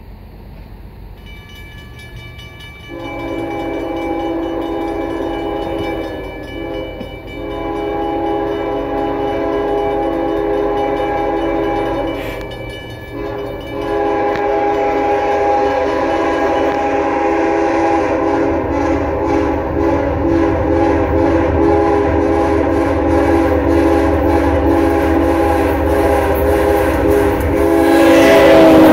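Freight locomotive's multi-chime air horn sounding a chord in several long blasts with short breaks, the last held as the train approaches at track speed. The horn grows louder and its pitch drops as the locomotive passes near the end, with engine rumble and wheel clatter on the rails building underneath.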